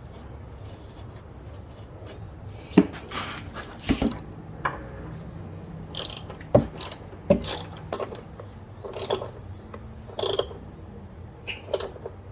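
Hand tools and metal brake parts clicking and clanking at irregular intervals, some clanks with a brief metallic ring, as work goes on at a car's rear brake.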